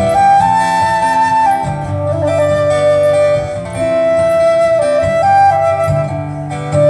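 Flute playing a slow melody of long held notes over a strummed acoustic guitar, in an instrumental passage of a song.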